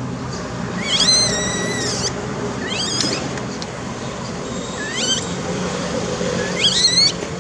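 Baby monkey giving four high-pitched calls, each sliding up in pitch. The first, about a second in, is the longest and loudest, held for about a second; the other three are short.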